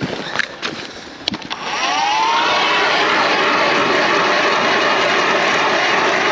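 A few sharp clicks, then a motor spins up with a rising whine and runs loud and steady at high speed.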